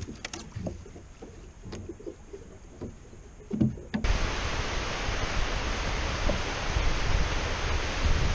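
A few light knocks on a fishing boat, then, about four seconds in, the sudden steady rush of water pouring over a dam spillway, with a heavy low rumble.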